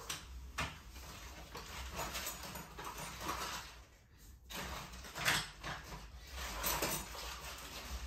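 Cardboard and plastic packing material rustling and scraping as it is handled inside a large cardboard box, with a few sharper scrapes about half a second in, around five seconds in and near the end.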